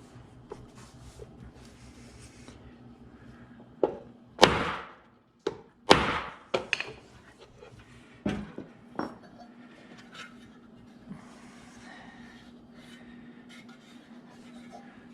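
Series of about eight sharp knocks on metal parts, bunched in the middle, the two loudest with short ringing tails, over a faint steady hum: tools at work fitting a new harmonic balancer seal into the timing cover.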